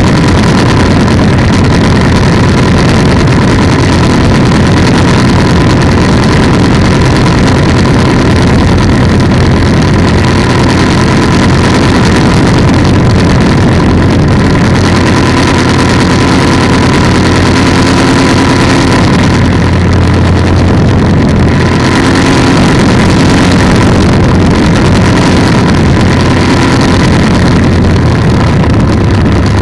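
Polini 190 single-cylinder two-stroke engine of an ultralight trike running steadily at power, loud throughout, its pitch shifting slightly now and then.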